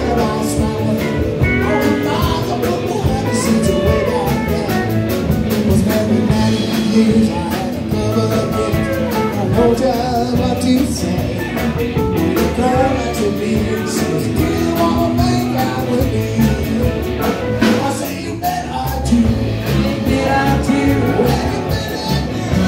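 Live band playing a bluesy rock song: electric guitars over drums, with singing.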